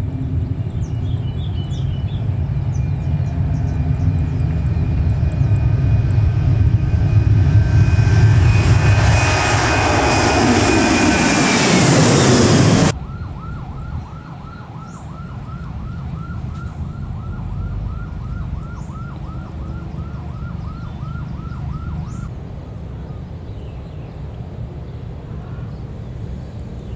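Rolls-Royce Trent 7000 turbofans of an Airbus A330-900neo airliner passing close, building to a loud jet roar with a falling pitch as it goes by, then cut off suddenly about 13 seconds in. After the cut, a quieter background carries a high chirp repeating three to four times a second for several seconds.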